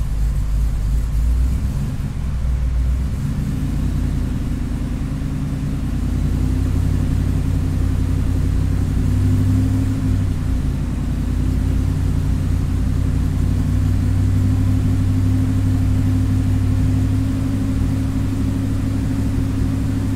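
Ford SVT Lightning's cammed, supercharged 5.4-litre V8 running at a steady raised idle, heard from inside the cab. The engine speed is lifted a little about six seconds in and then held steady, keeping airflow at about 245 MAF counts for a tuning datalog with the warm engine on an open-loop tune.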